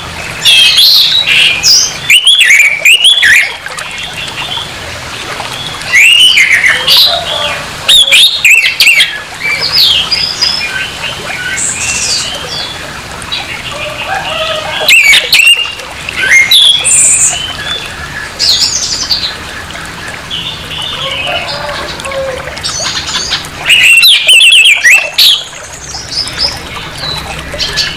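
Orange-headed thrush (anis merah) singing a harsh, varied song: about five loud bursts of quick warbling phrases, with quieter chirps between them.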